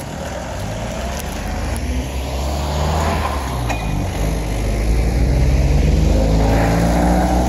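A heavy logging truck's engine running close by, its note drifting in pitch and getting louder about halfway through.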